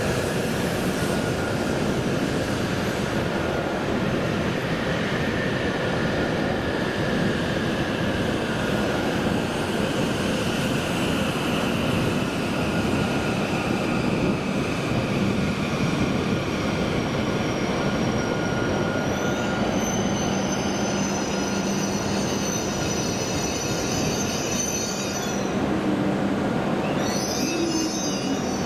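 W7 series Shinkansen train running into the platform and slowing, a steady rolling rumble under a whine that slowly falls in pitch. A high-pitched squeal sets in about two-thirds of the way through and breaks off a few seconds later.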